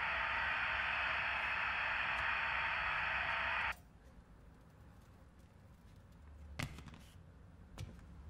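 Television static hiss from an old CRT set, steady, cutting off suddenly about a third of the way in as the set goes dark. Then a quiet room with a few faint taps.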